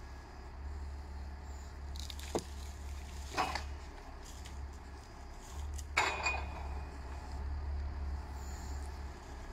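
Valtra 8550 tractor's diesel engine running steadily, driving the forestry crane, with branches cracking and clattering three times as the grapple loads them: a small crack about two seconds in, then louder ones at about three and a half and six seconds.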